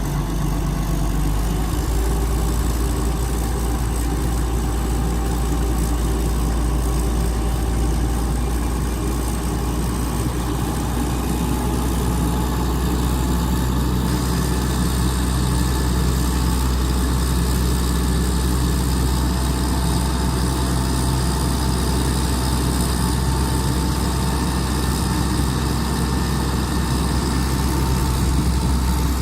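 PPM Terex A600 60-ton crane's diesel engine idling steadily.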